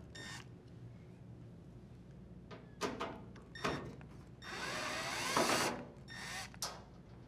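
Power screwdriver backing the screws out of a dryer's sheet-metal front panel: a few short bursts, then a longer run of about a second in the middle with its motor pitch wavering, then one more short burst.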